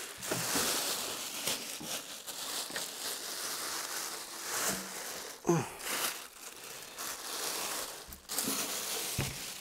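Thin plastic packaging bag rustling and crinkling unevenly as a heavy inverter charger is pulled out of it and its box.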